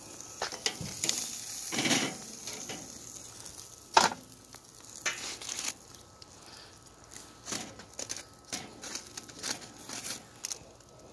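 Metal tongs clacking and scraping on a charcoal kettle grill's grate as ribs are lifted off, with scattered irregular clicks and a sharp knock about four seconds in. Aluminium foil crinkles lightly near the end.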